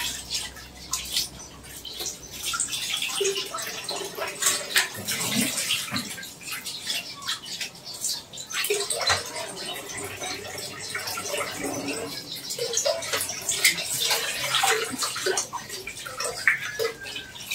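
Tap water running in a kitchen sink as duck eggs are washed by hand, with frequent light knocks and clatter of the eggs and a steel pot.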